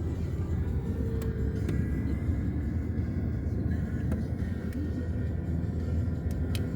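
Steady low road and engine rumble of a moving car, heard from inside, with music playing faintly over it.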